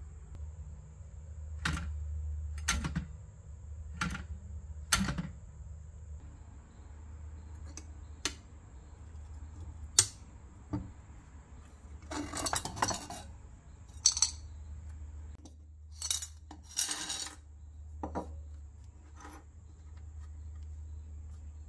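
Coins and steel washers clinking and clattering on a wooden workbench, among scattered sharp metallic clicks of parking meter parts being handled. Short rattling clatters come twice past the middle, over a steady low hum.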